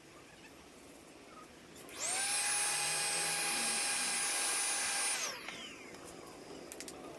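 A small power tool, drill-like, spins up to a steady high-pitched whine, runs for about three seconds, then winds down.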